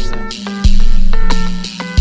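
Electronic instrumental music: stepped synth chords over a low sustained note, with a deep bass hit about two-thirds of a second in.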